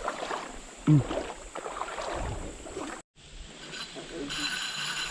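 Indistinct low voices, with one brief loud vocal sound about a second in. The sound cuts out completely about three seconds in, then comes back as a different, fainter background with steady high tones.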